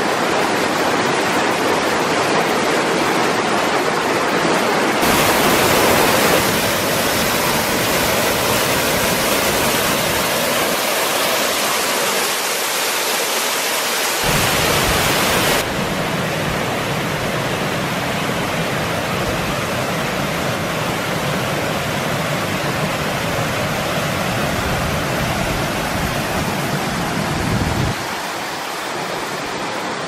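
Steady rushing of a waterfall and cascading stream water. Its tone changes abruptly about five seconds in, around the middle and near the end.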